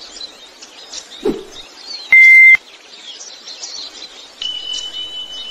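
Birdsong with many short chirps, a short low thump about a second in, then a loud, steady electronic beep lasting about half a second; a thin steady high tone comes in near the end.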